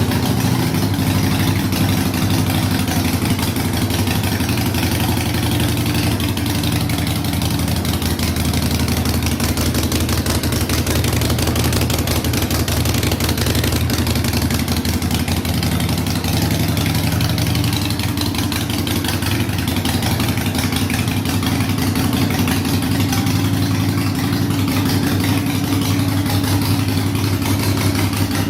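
Harley-Davidson Iron 883's air-cooled 883 cc V-twin engine idling steadily.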